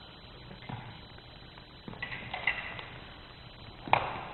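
Fencers' footwork on a wooden gym floor: separate footfalls, then a cluster of light metallic clicks with short ringing about two seconds in as foil blades touch, and a sharp smack near the end, the loudest sound, as one fencer attacks.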